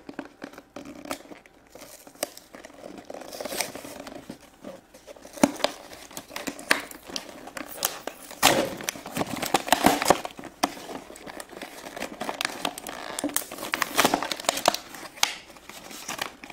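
Clear plastic blister pack being pried and pulled away from its cardboard backing: irregular crinkling and crackling of thin plastic with bits of tearing, loudest about halfway through and again near the end.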